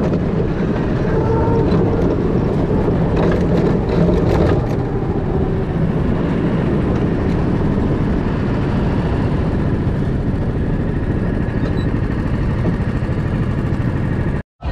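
Go-kart engine running steadily as the kart drives around the track, with wind noise on the microphone; a little louder in the first few seconds.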